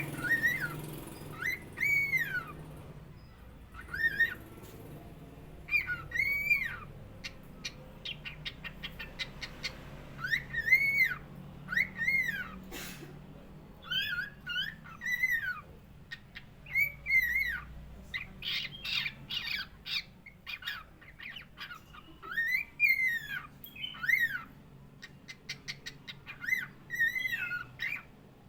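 Cockatiel whistling: a string of short arched notes that rise and fall, repeated every second or two, mixed with quick runs of rapid chirps.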